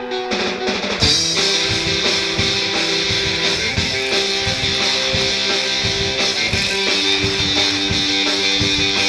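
Background rock music with guitar and a drum kit; the full band comes in about a second in, with a steady beat.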